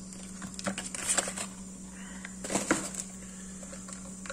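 Cardboard smartwatch box and packaging being handled: short rustles and taps about a second in and again near the three-second mark, over a steady low hum and a steady high whine.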